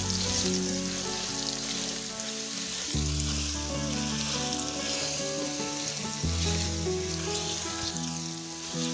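Boiled potatoes and spices sizzling in hot oil in a nonstick frying pan as they are stirred and tossed with a silicone spatula. Background music with sustained chords runs underneath, changing about every three seconds.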